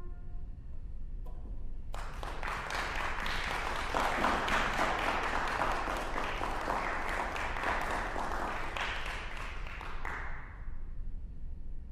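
Audience applauding: dense clapping starts about two seconds in and dies away near the end. At the very start the last trumpet note fades out.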